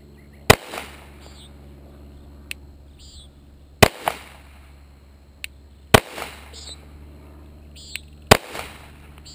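Four single shots from a 9mm Glock pistol, fired slowly at about two to three seconds apart, each sharp report trailing a short echo. A few fainter ticks fall between the shots.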